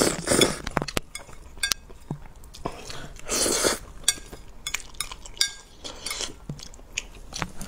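Slurping mouthfuls of noodles in sauce and chewing, with wet mouth sounds. There are short slurps near the start, about three seconds in and again around six seconds, and small clicks of chopsticks against the plate in between.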